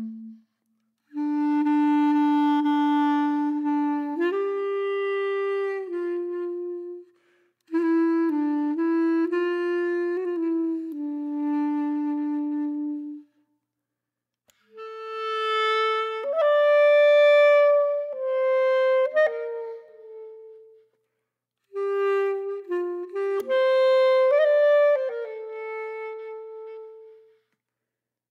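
Background music: a single melody line with long held notes, played in four phrases separated by short silences.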